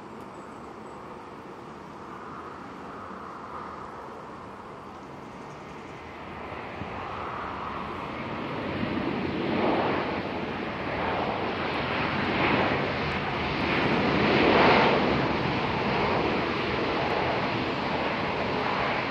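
Jet airliner engine noise, faint at first, then building from about six seconds in to a loud, pulsing roar near the middle that holds to the end.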